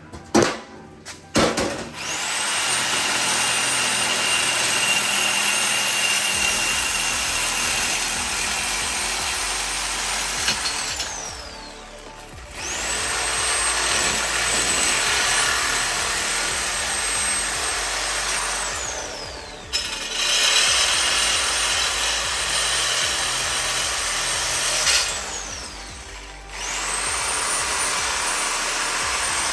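Angle grinder cutting through steel in four runs: each time the motor spins up to a high whine, cuts, then winds down in a falling tone when released. A few clunks of metal being handled about a second in.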